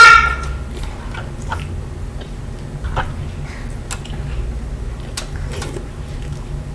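Close-up eating sounds: chewing and mouth noises with a few sharp clicks of a fork against the bowl. A child's high-pitched squeal ends in the first moment.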